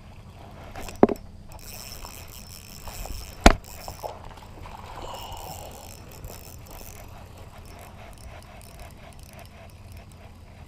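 Two sharp knocks about two and a half seconds apart, the second louder, over light rustling as a spinning rod and reel is handled.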